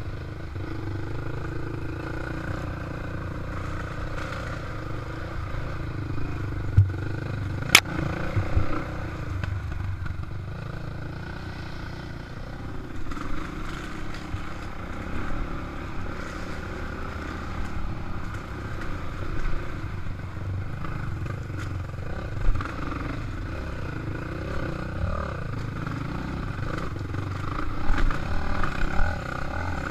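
Dirt bike engine running as the bike rides a rough dirt trail, its note rising and falling with the throttle, with knocks and clatter from the bumps, one sharp knock about eight seconds in.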